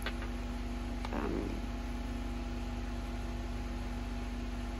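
A steady mechanical hum with a fast, even low pulse, and a short breath about a second in.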